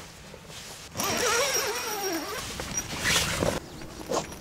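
A small poodle-type dog whining eagerly, a wavering cry that falls in pitch over about a second, as it waits to be let out of the tent. A short zip follows near the end as the tent door is opened.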